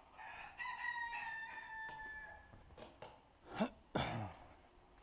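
A fowl calling: one long, drawn-out crow that falls slightly in pitch, then two short, loud swooping calls, one rising and one falling, a little after the middle.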